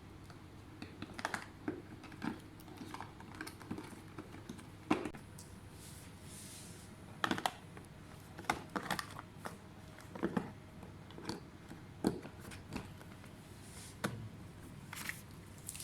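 Scattered clicks and taps of keys being pressed on a laptop keyboard, irregular and roughly one or two a second, over a faint steady hum.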